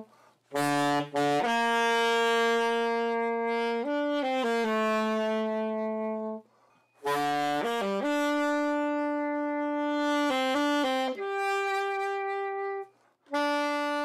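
A saxophone playing a slow melody of long held notes, pausing briefly for breath twice between phrases.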